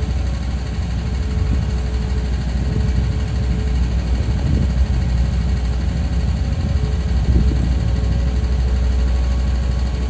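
Diesel engine of a tanker lorry idling steadily: a low rumble with a steady higher hum over it.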